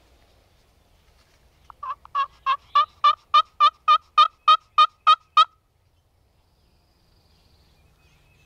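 A run of about a dozen turkey yelps, evenly spaced at roughly three a second, starting about two seconds in and growing louder over the first few notes.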